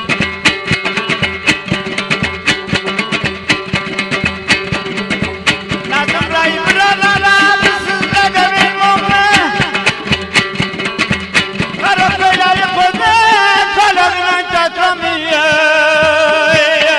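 Afghan folk music: dambura and rubab playing a fast plucked tune. A man sings in long, wavering phrases from about six seconds in, and again from about twelve seconds.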